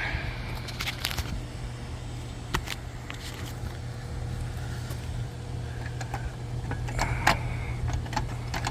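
A steady low hum with scattered small clicks and light metallic taps.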